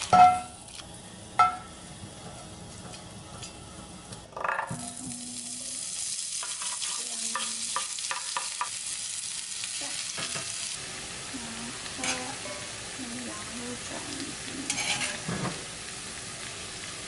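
Chopped aromatics and a piece of hot pot base frying in hot oil in an enameled pan. After two sharp clinks near the start, a loud sizzle sets in about four and a half seconds in and keeps going as a wooden spoon stirs and scrapes through it.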